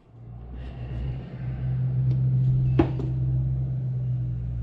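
A steady low mechanical hum that builds over the first couple of seconds and then holds, with a single sharp click about halfway through.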